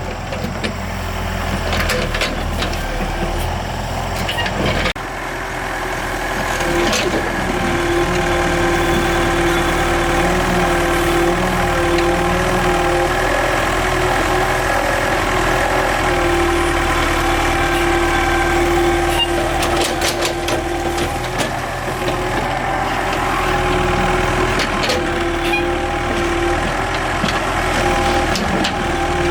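Excavator's diesel engine running steadily, with a whining tone that swells and fades and a few sharp knocks.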